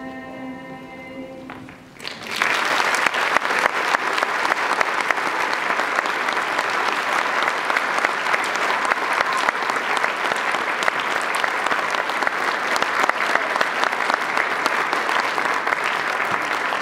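A treble choir's final held chord fades away, then about two seconds in an audience breaks into steady applause that carries on.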